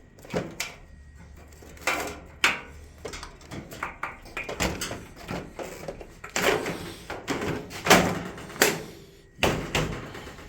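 Plastic parts of a dryer's control panel knocking and clicking as they are handled and fitted back together, a string of irregular knocks, the loudest about eight seconds in.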